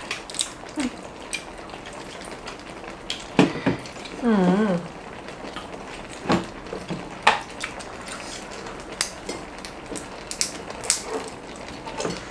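Chopsticks and tongs clicking and tapping against bowls and a hotpot pan, in scattered light knocks. About four seconds in, someone makes a short wavering hum.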